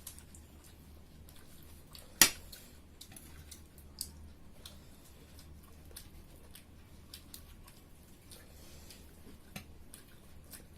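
Family eating pork curry and rice: chewing and small scattered clicks of food and utensils, with one sharp loud click about two seconds in and a smaller one about four seconds in. A low steady hum runs underneath.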